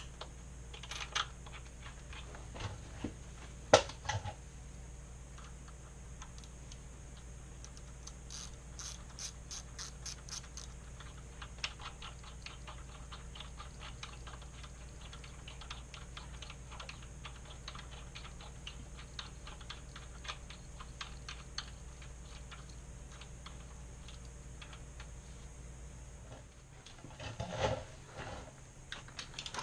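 Socket ratchet clicking in long quick runs of small, even clicks, with a sharp metal knock about four seconds in and tool-handling noise near the end.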